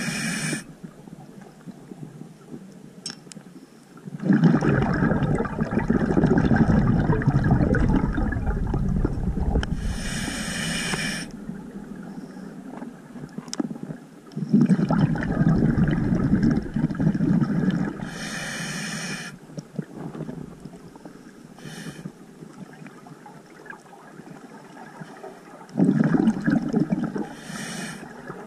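Scuba diver breathing through a regulator underwater: several-second bursts of gurgling exhaled bubbles alternating with short hissing inhales, in a cycle of roughly nine to ten seconds.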